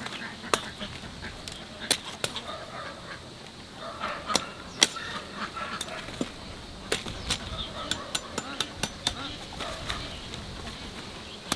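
Irregular sharp knocks and taps, some loud, with chickens clucking faintly between them.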